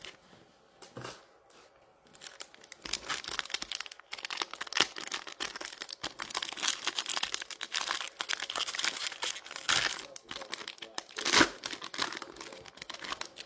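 Trading-card pack wrappers being torn open and crinkled by hand: a dense run of crackling and tearing from about three seconds in until near the end.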